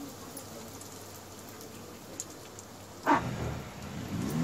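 Hot oil sizzling and crackling steadily as breaded chicken deep-fries in a steel kadhai, with one loud knock about three seconds in.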